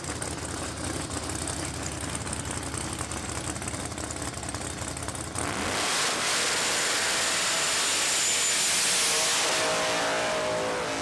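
Race-built full-size pickup trucks, among them a 1971 Chevrolet C10, sit at the drag strip's starting line with engines running at low speed. About five seconds in they launch at full throttle: a sudden, much louder blast of engine noise and tyre spin that stays loud, with the engine pitch climbing near the end.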